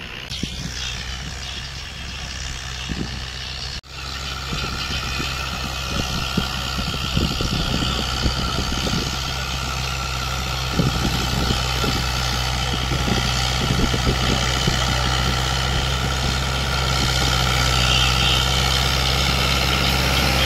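Farm tractor's diesel engine running steadily under load while it pulls a tine cultivator through ploughed soil, with a brief dropout about four seconds in.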